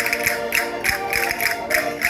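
Concertinas playing a lively dance tune in steady held chords, over a percussion beat of about three to four sharp hits a second.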